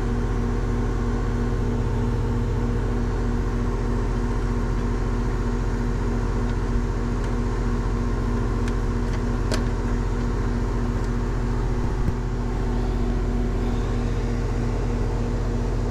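Goodman heat pump outdoor unit running steadily: an even hum from the compressor and condenser fan, with a couple of faint clicks about halfway through.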